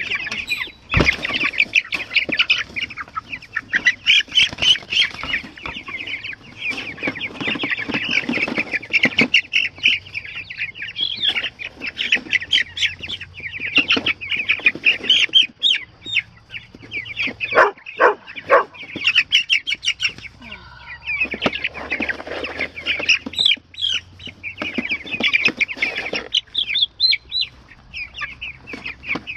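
A flock of young meat chickens peeping constantly in quick, high chirps, with some wing flapping and a few sharp knocks as the birds are handled in a wire crate.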